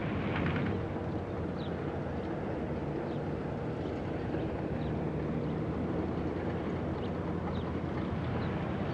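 An assault boat's motor running with a steady, even drone.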